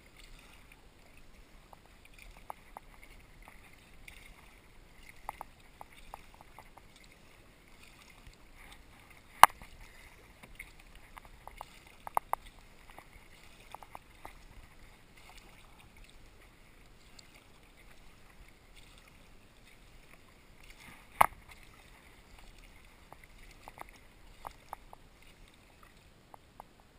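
Sea kayak being paddled on calm water: faint sloshing and dripping from the paddle strokes, with scattered small ticks. Two sharp knocks stand out, one about nine seconds in and one about twenty-one seconds in.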